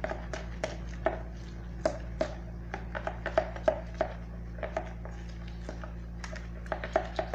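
A utensil clicking and knocking against a container while stirring a slime mix of glue and blue food colouring, in quick irregular strokes a few times a second, over a steady low hum.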